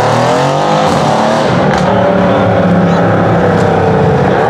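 Mercedes C-Class sedan's engine and exhaust under throttle as the car pulls away, the note rising in pitch at first and then holding at a steady pull.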